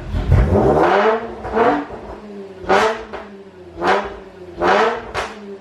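Honda Accord engine, freshly flashed with a pops-and-burbles tune, blipped repeatedly while stationary. It gives a quick rev about once a second, each rising and dropping straight back to a steady idle, with sharp exhaust cracks on several of the blips.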